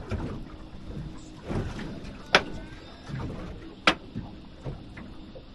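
Two sharp knocks about a second and a half apart, over a low background rumble, with faint voices now and then.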